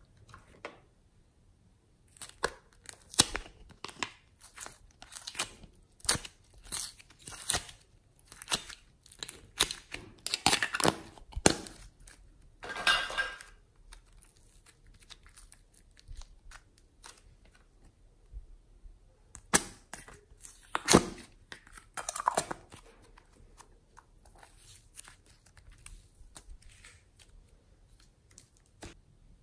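Soft modelling clay squeezed and pulled apart by hand, giving runs of sticky crackling and tearing sounds. There is one long stretch of crackles and a second, shorter burst about two-thirds of the way through, with a lull between them.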